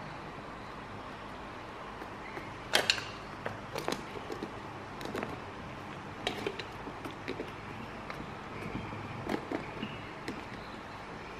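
Scattered clicks and light knocks of objects being handled on a wooden table: a plastic feeding bottle, a milk-powder tin and packaging. A louder pair of knocks comes about three seconds in.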